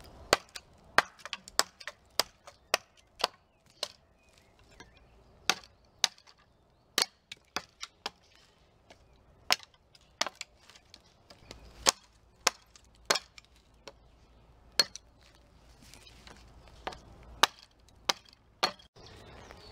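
A hatchet chopping at a thin upright wooden pole: a run of sharp, irregular blows, about one or two a second, with a few short pauses.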